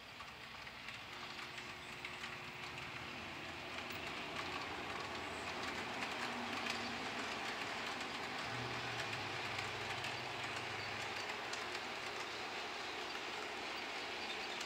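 HO scale model train running along the track: the locomotive's small electric motor humming and the wheels rattling on the rails. It grows louder over the first few seconds as the train picks up speed, then runs steadily.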